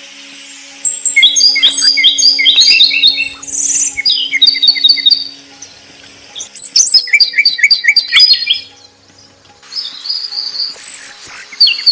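Songbird singing in quick phrases of short, repeated chirps and trills, with short pauses between phrases.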